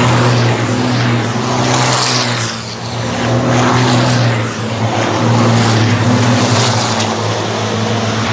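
Several diesel race trucks running hard round the circuit, a steady low engine drone under rushing noise that fades and swells again as the trucks go by.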